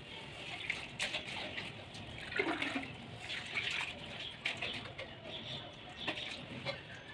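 Faint scraping and rubbing of hands and tools on ceramic floor tiles and mortar during tile laying, with a few light clicks and knocks.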